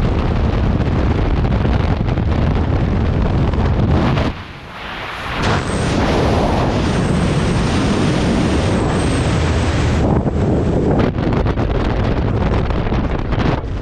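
Wind blasting over a skydiver's helmet-camera microphone in freefall. About four seconds in the noise briefly drops away as the parachute deploys, then the wind noise carries on under the open canopy.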